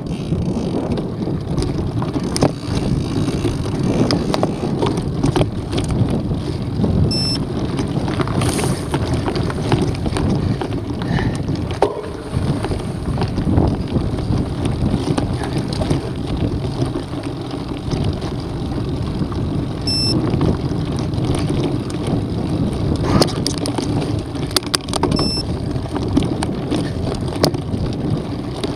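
Mountain bike riding over a stony dirt trail: steady knobby-tyre rumble and rattling of the bike, with many small clicks and knocks from stones and the frame, under wind buffeting the microphone.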